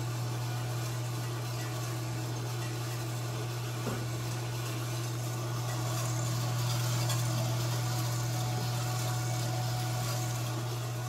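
Imextech electric drum coffee roaster running mid-roast: a steady low hum from its drum motor and fan, with an even rushing noise above it that swells slightly around the middle.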